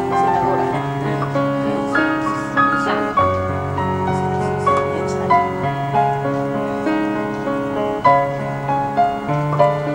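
Background piano music: a slow melody over long held bass notes.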